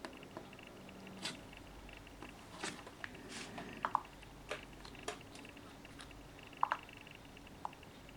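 Faint irregular clicks and taps, about a dozen, over a quiet room background with a faint steady high hum. The loudest come as close pairs with a brief ringing tone, about four seconds in and again near seven seconds.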